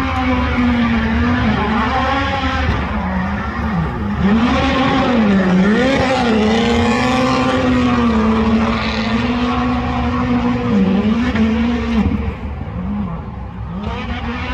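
Travis Pastrana's 850-whp Subaru STI 'AirSlayer' flat-four engine held at high revs, its pitch dipping and climbing back several times, over a rushing tire noise. It eases off somewhat about twelve seconds in.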